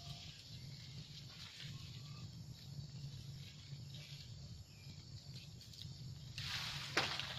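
Quiet outdoor ambience with a steady low hum and faint rustling and clicks of monkeys moving through leafy branches, with a louder rustle near the end.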